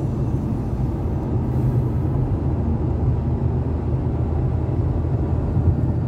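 Steady low road and engine rumble inside a car's cabin while driving in motorway traffic.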